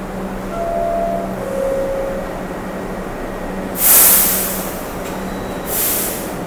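New York City IRT subway train standing at the platform with a steady hum. A two-note falling door chime sounds in the first two seconds, then the doors close and two loud hisses of air come about two seconds apart, the first the louder, as the train readies to leave.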